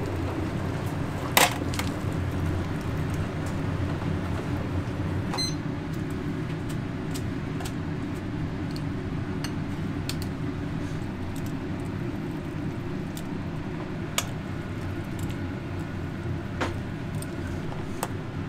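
Restaurant kitchen background: a steady low hum of kitchen equipment with scattered sharp clinks, like utensils or dishes, the loudest about a second and a half in.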